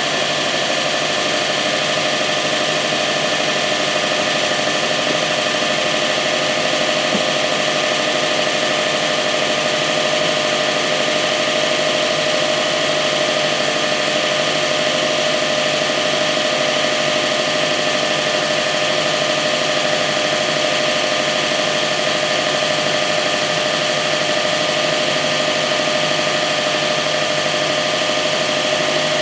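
2005 Subaru Legacy GT's turbocharged 2.5-litre flat-four boxer engine idling steadily after a cold start. The owner hears a weird fluttering noise from it on cold start-up and doesn't know the cause.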